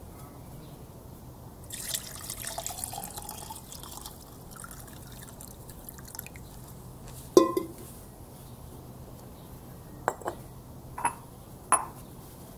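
Bone broth poured from a glass jug into a small glass jar, splashing and trickling for a couple of seconds, then running as a quiet thin stream. Glass clinks follow: one sharp clink about halfway through and several lighter ones near the end as the jug and jar are handled.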